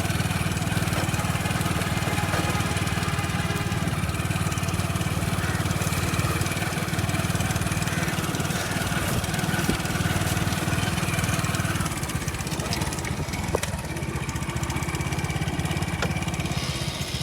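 An engine running steadily at idle, a low, even, fast-pulsing rumble that eases slightly about twelve seconds in.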